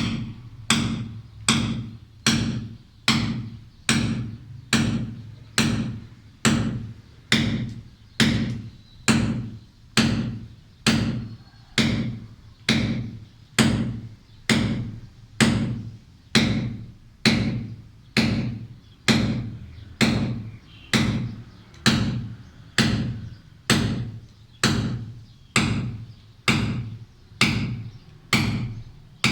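Hand hammer striking a steel chisel to chip away a concrete corner, in a steady, even rhythm of sharp strikes about one and a half per second.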